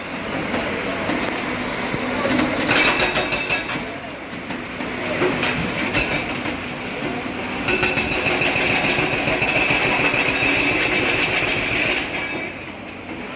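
Loud, continuous mechanical rattling and clatter from heavy machinery, growing louder twice and easing off near the end.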